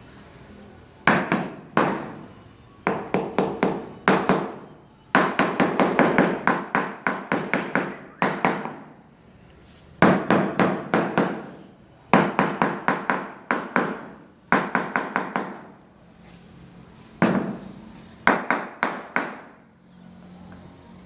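Hammer blows in quick runs of several strikes a second, with short pauses between the runs and a brief ring after each strike.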